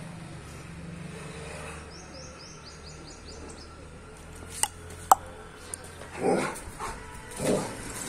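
German Shepherd barking twice, the barks a little over a second apart in the second half, after two sharp clicks a moment earlier.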